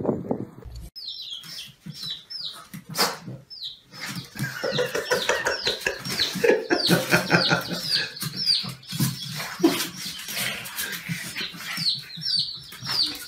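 Baby chicks peeping over and over in short, high, falling cheeps, with a single knock about three seconds in.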